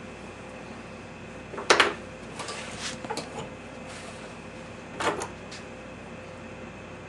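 Handling noise from work on a hanging bear paw: two sharp knocks about three seconds apart, the first the loudest, with softer scuffing and rustling between them, over a steady low hum.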